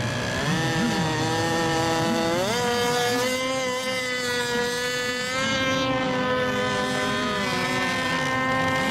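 Several radio-controlled racing boat engines running at high revs. One engine rises in pitch about half a second in and again at about two and a half seconds as it speeds up, then holds a steady high whine.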